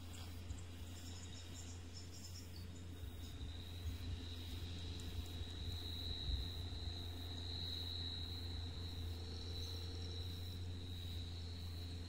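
New Holland tractor working in the distance: a high, steady whistle over a low engine drone, the whistle growing stronger about halfway through.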